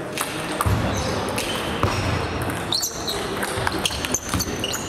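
Table tennis rally: sharp clicks of the ball striking the bats and the table, one after another, echoing in a large sports hall, with short high squeaks of shoes on the floor.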